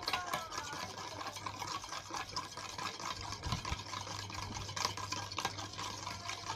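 Spoon stirring a wet mixture of dish soap, hand lotion and salt in a bowl for slime, with many small clicks and scrapes against the bowl.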